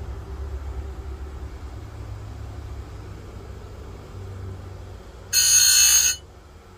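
Oregon bench chainsaw-chain grinder's motor running with a low hum. About five seconds in, the spinning wheel is brought down onto a chain cutter for one short, loud grind of under a second, sharpening the tooth.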